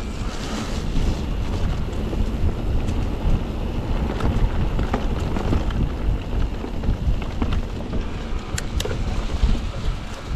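Wind rumbling on the bike-mounted camera's microphone, mixed with tyre and trail noise from a mountain bike rolling along a dirt trail. A few short sharp ticks come near the end.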